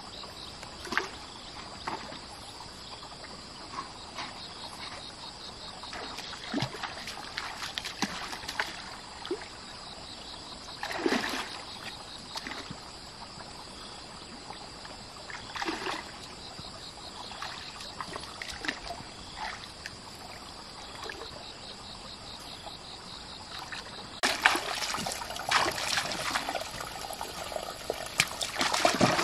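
Shallow stream water splashing and trickling around a person wading with a hand net, with a few separate splashes, then steadier splashing from wading steps near the end.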